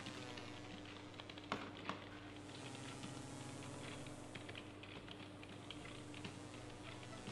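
Typing on computer keyboards: a steady patter of key clicks, with two louder clacks about a second and a half and two seconds in, over a steady low hum.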